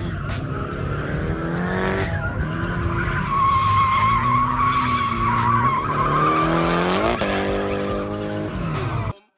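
LS1 V8-swapped Nissan 240SX (S13) drifting: the engine revs up and down twice while the rear tyres squeal, loudest through the middle of the slide. It cuts off suddenly near the end.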